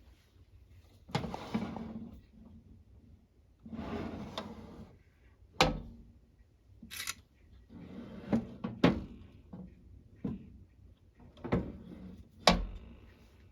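Kitchen handling sounds: a string of sharp knocks and clatters, like things being set down or a drawer or cupboard being worked, with two longer stretches of rustling or scraping in the first half.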